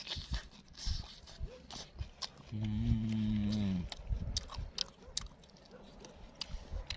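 One low, drawn-out, moo-like call, steady for over a second and dropping in pitch as it ends, heard about two and a half seconds in. Small sharp clicks and taps of eating go on around it.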